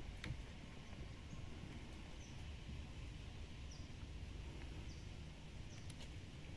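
Faint ambience with a low rumble and a steady hiss, over which a bird gives four short high chirps, starting about two seconds in.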